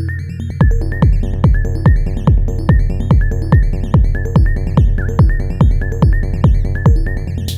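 Hypnotic techno pattern played on an Elektron Model:Cycles groovebox: a steady four-on-the-floor kick, about two beats a second, comes in about half a second in and drops out near the end. Under it runs a steady bass, and short high synth notes repeat over the top.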